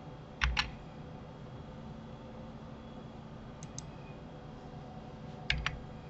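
Clicks of a computer keyboard and mouse working the shortcuts of 3D modelling software: three quick double clicks, a loud pair about half a second in, a faint pair in the middle and a loud pair near the end.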